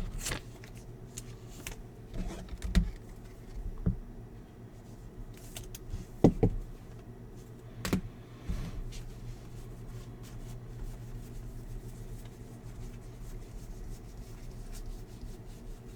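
Baseball trading cards being handled and flipped through, with scattered light taps and rustles over a low steady hum.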